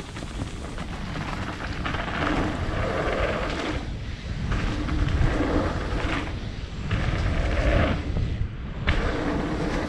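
Wind buffeting a helmet-mounted camera's microphone and a mountain bike's tyres rumbling over a dirt trail at speed, a loud low rumble that swells and eases in surges.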